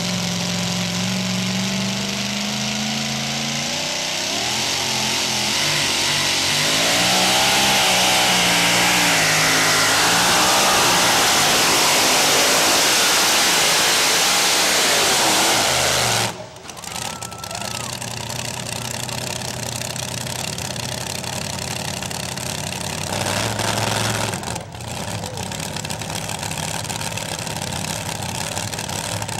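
Two-wheel-drive pulling truck's engine at full throttle pulling the sled, its pitch rising and falling as the tyres spin and growing louder as it comes closer. About halfway through, the sound cuts off abruptly and gives way to an engine idling.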